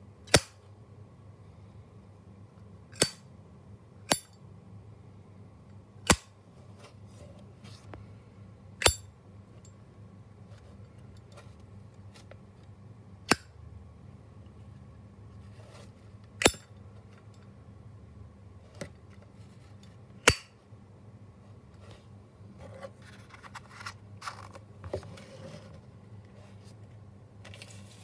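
Zippo lighter's hinged metal lid being flipped open and snapped shut again and again: about nine sharp metallic clicks a few seconds apart, its signature 'click'. Softer scraping and rustling near the end as the lighter is handled into its cardboard box.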